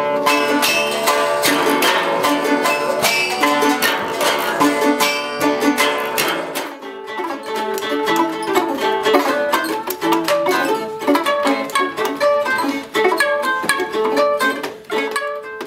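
A small ensemble of plucked string instruments, guitars sawn in half among them, playing a quick, busy tune. The bass notes drop out about seven seconds in, and the music fades near the end.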